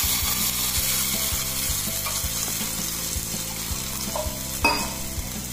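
Green chutney paste sizzling as it is poured into hot oil tempered with cumin, mustard seeds and curry leaves in an aluminium pot; the sizzle slowly dies down. A single sharp knock sounds near the end.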